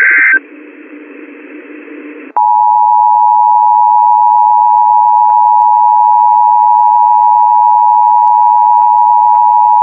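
Emergency Alert System warning on a NOAA weather radio announcing a severe thunderstorm warning. The last burst of the coded data header ends just after the start and is followed by about two seconds of faint hiss. Then the steady 1050 Hz warning alarm tone sounds for about eight seconds and cuts off.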